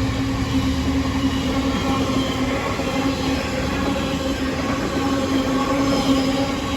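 Freight train running through on the main line behind a GBRF Class 66 diesel locomotive, its wagons rolling past at speed. A steady rumble of wheels on rail carries a held whining tone.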